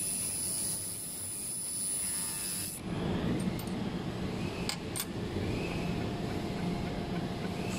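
1500 W laser welding machine welding a steel pipe: a steady high whine with hiss that cuts off suddenly about three seconds in. After it comes a low, rough machine noise with two sharp clicks.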